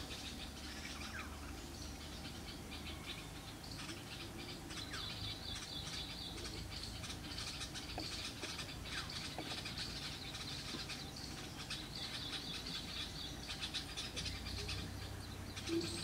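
Faint outdoor ambience: a steady high trill of insects with fine crackling ticks, and a few faint short bird chirps.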